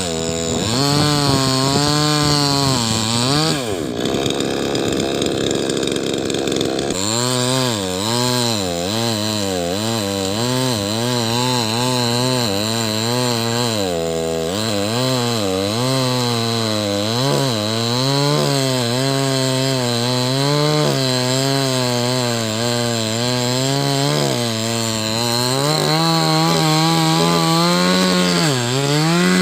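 Chainsaw engine running throughout, its pitch rising and falling again and again as the saw bites into and eases off the wood while cutting a tree. A rougher, less even stretch comes a few seconds in.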